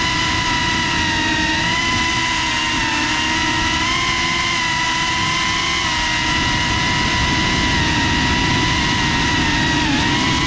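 FPV drone's electric motors and propellers whining steadily, the pitch wavering slightly with throttle, over a low rush of prop wash and wind. The whine dips briefly near the end.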